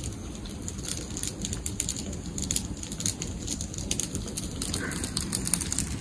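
Wood campfire crackling, a dense run of small pops over a steady hiss of burning.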